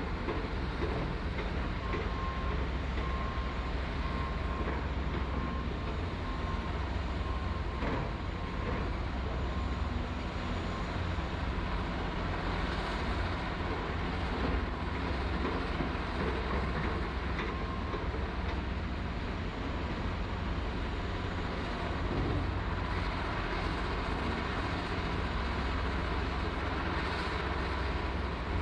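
Heavy diesel construction machinery running steadily, with a faint high whine over the first half or so and a few short knocks.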